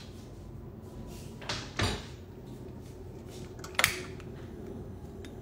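A few knocks and clunks of kitchen items being handled on the counter and stove, the loudest and sharpest about four seconds in, over steady low room noise.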